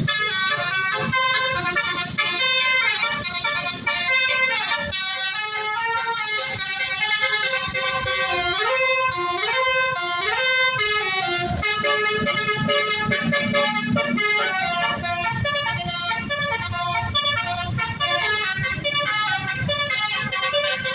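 Bus 'basuri' telolet horn playing a long melody of stepped, changing notes, over low traffic rumble.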